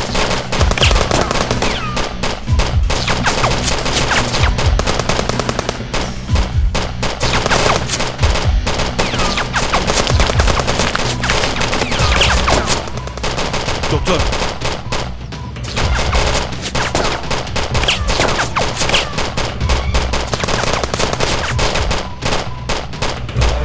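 Dense, rapid gunfire from rifles and pistols in a close-range firefight, many shots a second with a few brief lulls.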